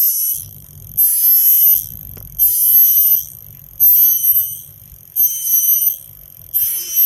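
Cicada calling loudly in a repeated pattern: six high-pitched buzzing phrases, each under a second long, coming about once every second and a half.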